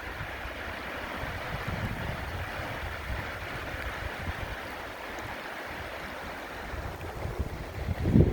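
Steady rush of Steall Waterfall's falling water, with wind buffeting the microphone in low gusts that grow stronger near the end.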